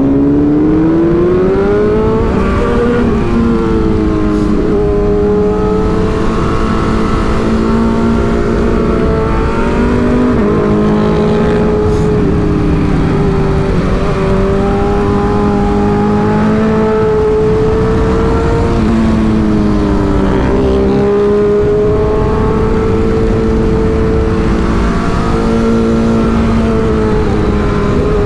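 A sport motorcycle's engine under way. Its pitch climbs over the first few seconds, then mostly holds at cruising speed, dropping briefly a few times as the revs fall. A steady rush of wind runs underneath.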